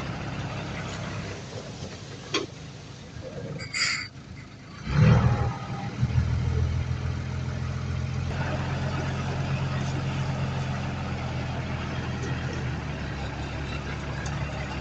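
Diesel engine of heavy earthmoving machinery running steadily. It is quieter for the first few seconds, with a sharp click and a short hiss. About five seconds in comes a loud thump, after which the engine runs louder again.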